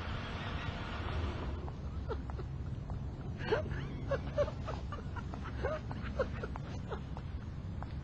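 A car engine idling with a low, steady rumble. From about a second and a half in, a string of short chirps sounds over it.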